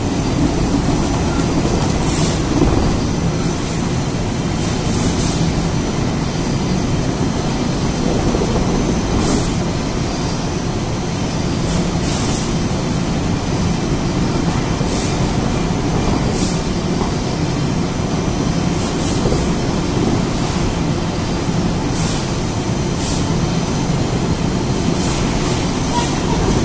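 Steady mechanical drone of a CLM S.feed-M manual feeder with vacuum suction and its flatwork ironer line running, with short hissing swishes every second or few at irregular intervals.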